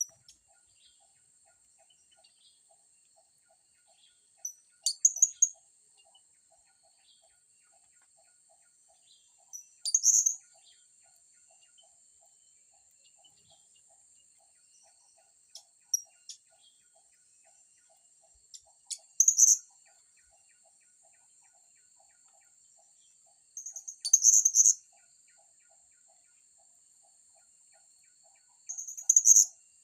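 Blue-crowned hanging parrots (serindit) giving short, high-pitched chirping calls in bursts about every five seconds. Underneath runs a steady, high insect whine.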